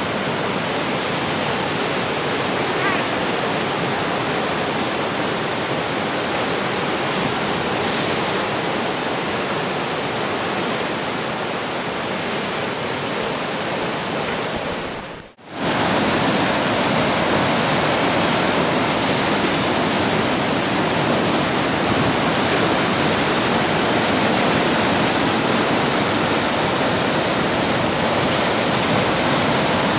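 Ocean surf breaking on rocks and washing over a rocky shore, a steady rushing wash of noise. It cuts out for a split second about halfway, then resumes slightly louder.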